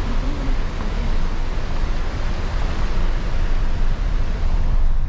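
Loud steady rushing noise with a heavy low rumble: wind buffeting the phone's microphone and tyre noise from a car driving along a gravel road.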